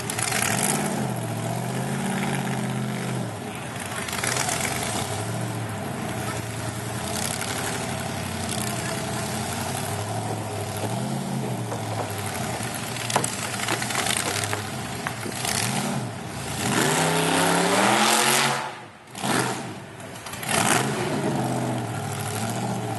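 Supercharged small-block Chevy V8 with an 8-71 blower, in a Ford Ranger drag truck, running at a lumpy, wavering idle as the truck creeps along. About three quarters of the way through the revs climb and get louder, then drop away sharply twice before settling back to idle.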